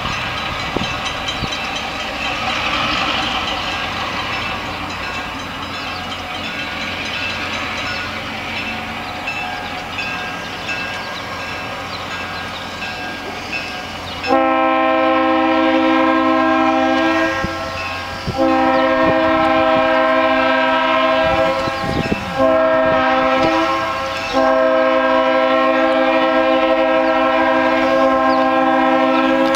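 Freight train locomotive sounding its horn in the grade-crossing pattern, two long blasts, a short one, then a final long blast, beginning about halfway through. Before the horn, the approaching train's engine and rail noise run steadily.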